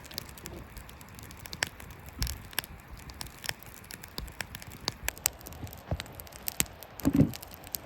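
Campfire crackling, with irregular sharp pops and snaps. There is a short low sound near the end.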